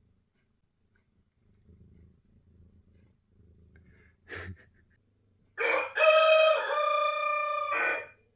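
A rooster crowing once, a loud drawn-out cock-a-doodle-doo lasting about two and a half seconds, starting about five and a half seconds in. It is preceded by a brief rustle a little past four seconds.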